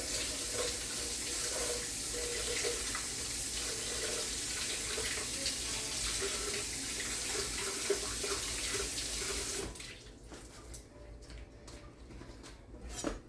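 Kitchen faucet running steadily while scallions are rinsed under the stream, then shut off about ten seconds in.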